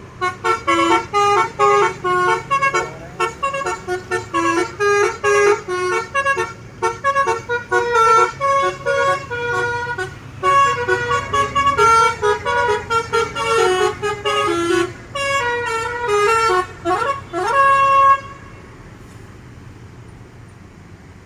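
Basuri multi-note musical air horn (telolet) on a bus, playing a fast tune of short, loud notes that jump about in pitch, with a few rising pitch slides near the end. The tune stops abruptly about eighteen seconds in, leaving a low steady rumble.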